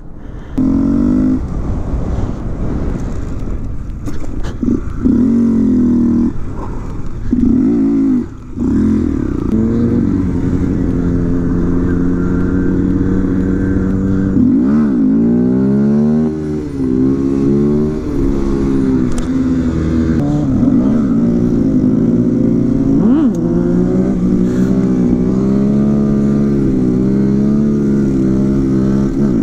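Small motorcycle engines running while riding off, stop-start for the first few seconds and then steady, rising and falling in pitch as they rev and shift. The camera bike is a Kawasaki Z125 Pro with its 125 cc single-cylinder engine, and a trials bike is ridden alongside.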